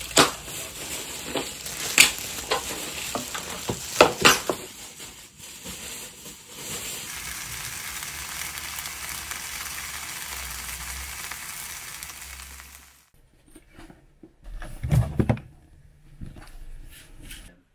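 Sharp clicks and clacks of new pots, lids and plastic-wrapped utensils being handled for the first few seconds. Then bread and two slices of ham sizzling steadily in a frying pan, cutting off suddenly about 13 seconds in. Near the end, a few thumps and rustling as a cloth bag is handled.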